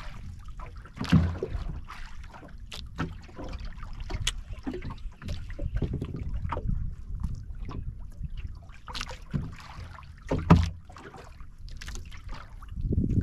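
Water slapping against the hull of a small drifting outrigger boat, with wind buffeting the microphone and scattered sharp knocks and clicks; the loudest knocks come about a second in and again near the end.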